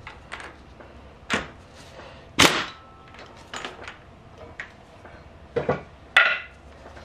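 Air impact wrench giving several short bursts to break loose the damper cartridge on a motorcycle front fork through a fork-cap socket. The bursts come about a second apart, the loudest about two and a half seconds in and again near the end.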